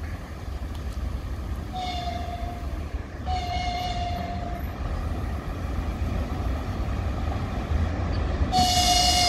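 VL80S electric locomotive's horn sounding three blasts as it approaches with a freight train: two about a second long, a moment apart, a couple of seconds in, then a third starting near the end. A steady low rumble runs underneath.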